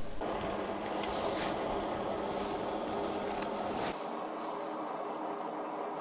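Steady hiss of a security camera's microphone picking up a quiet room, with a few faint rustles; about four seconds in it cuts to a quieter room tone.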